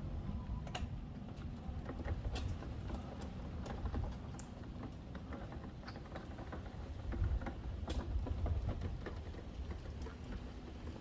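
A steady low rumble, like wind buffeting the microphone, with scattered irregular clicks and taps over it.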